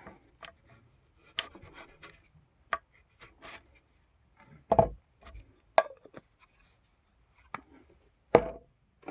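Handling noises from working filler and tools on a bench: a string of separate knocks and clicks, with light scraping between them.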